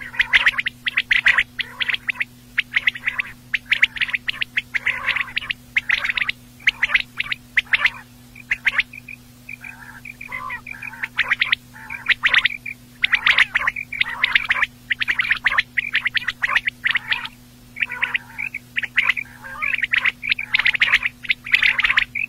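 Quail calling over and over in quick clusters of short, sharp, high notes, thinning out for a few seconds about halfway, with a faint steady hum underneath.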